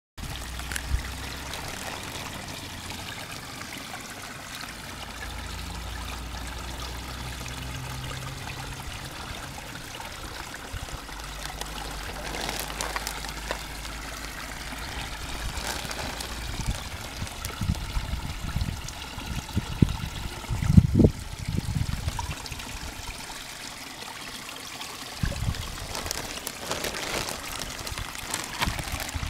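Water trickling and splashing in a garden pond as a plastic fish bag is dipped and tipped out into it. A few low thuds of handling come about two-thirds of the way through.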